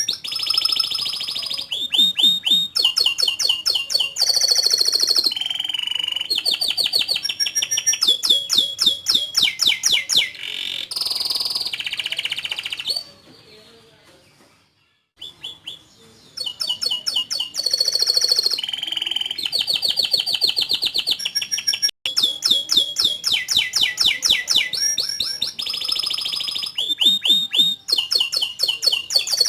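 Domestic canary singing a long, vigorous song of rapid trills and rolls. It moves from one repeated phrase to the next every second or two, and falls quiet for a couple of seconds about halfway through.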